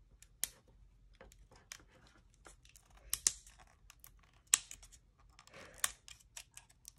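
Hand handling of a hot air brush and its packaging: scattered sharp plastic clicks and taps with short bursts of crinkling, the loudest a few seconds in and near the end.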